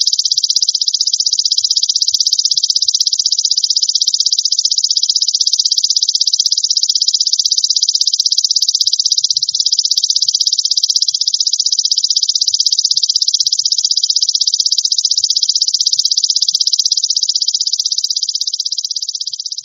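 Golden grasshopper (belalang emas, a katydid) calling: a continuous high, rapidly pulsing buzz, fading slightly near the end.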